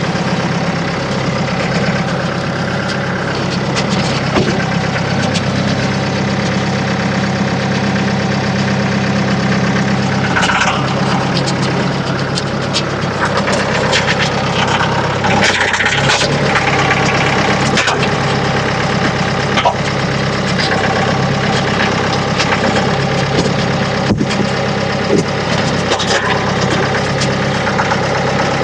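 Engine running steadily at a constant speed, with a few sharp knocks and thuds around the middle and later on.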